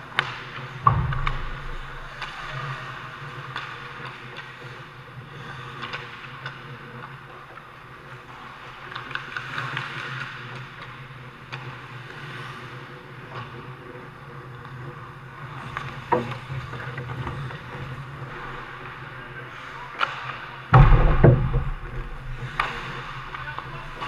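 Ice hockey play on a rink: skate blades scraping and carving on the ice, with sticks and the puck clacking and a few sharp knocks, the loudest a heavy thump about 21 seconds in. Under it runs a steady low hum.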